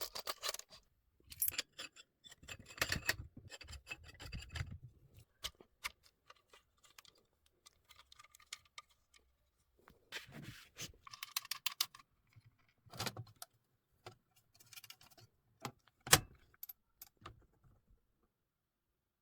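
Camera rig parts being handled and fitted together: irregular metallic clicks, rattles and jingling, with one sharp loud click about three-quarters of the way through.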